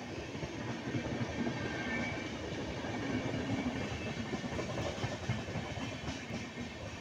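Indian Railways passenger coaches rolling past close by: a steady rumble of wheels on the track with a dense, irregular clatter.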